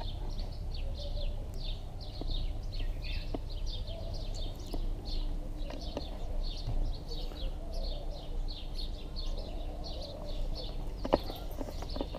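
Songbirds chirping steadily: a continuous run of short, high, falling chirps, about three a second, over a low rumble. A sharp click stands out near the end.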